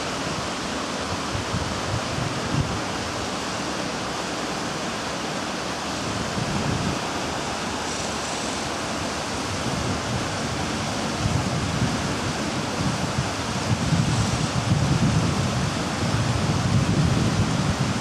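Wind buffeting the microphone over a steady outdoor rushing noise, the low gusts growing stronger and more frequent in the second half.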